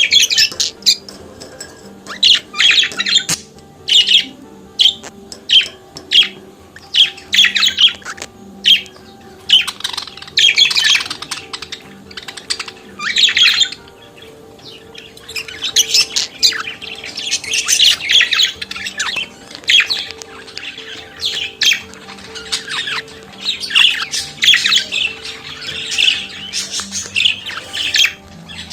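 Budgerigars warbling and chattering in irregular runs of quick high chirps and squawks, with a brief lull about halfway through.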